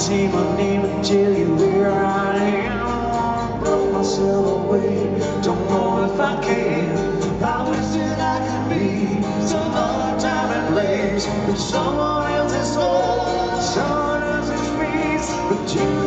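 Live acoustic rock song: acoustic guitars strummed under a male voice singing, heard from the audience.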